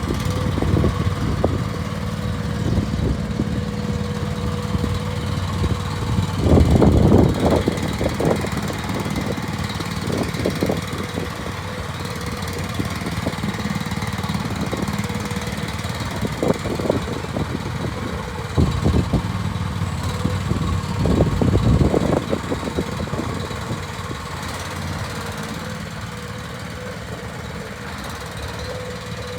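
Starvox SV-ME12 mini excavator engine running steadily, with several louder surges: about seven seconds in, twice between 16 and 19 seconds, and again around 21 seconds.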